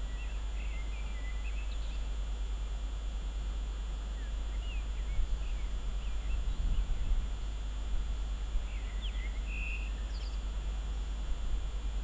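Birds chirping in short scattered calls over a steady low rumble.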